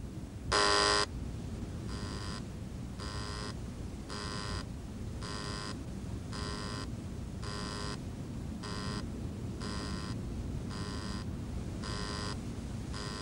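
Door-entry intercom buzzer sounding: one loud electronic buzz, then from about two seconds in a quieter buzz repeating about once a second.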